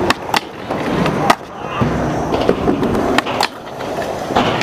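Skateboard wheels rolling on concrete, with several sharp clacks as the board is popped and lands, then the board grinding along a low metal rail near the end.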